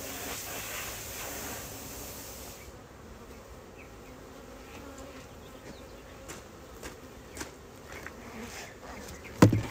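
Honey bees buzzing as they fly around the open hive and past the microphone, over a hiss that stops after the first few seconds. A couple of loud thumps come near the end.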